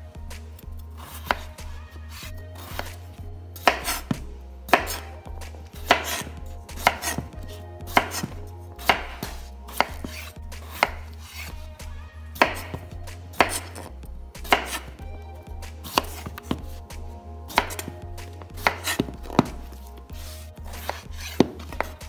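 Chef's knife slicing through raw russet potatoes and knocking down onto a bamboo cutting board: sharp knocks roughly once a second, at an uneven pace.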